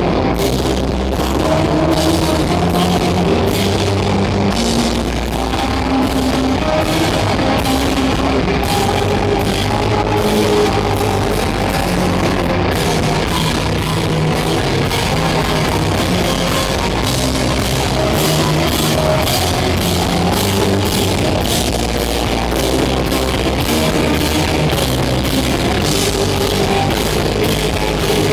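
Live rock band playing loudly: electric guitar, electric bass and a drum kit keeping a steady beat, heard through a phone microphone in a small club.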